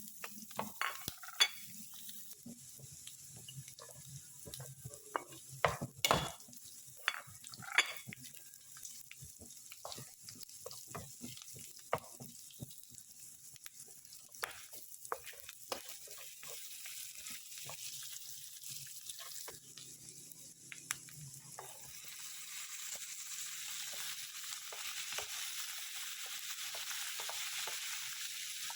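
Food frying in a pan while a spatula stirs, scraping and tapping against the pan in many sharp knocks. About two-thirds of the way in, a steady sizzle swells and holds.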